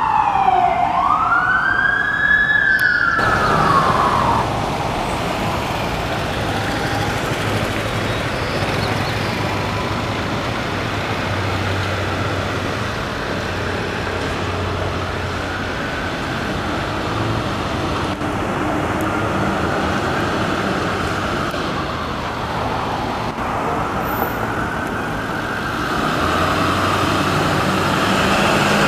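Fire truck's electronic siren wailing in long falling and rising sweeps for the first few seconds. After a sudden cut, a Ford Super Duty wildland fire truck's engine runs steadily as it pulls out, with a softer siren wail that grows louder near the end.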